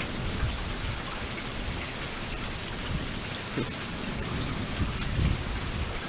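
Heavy thunderstorm rain pouring steadily, with low rumbling underneath that swells near the end.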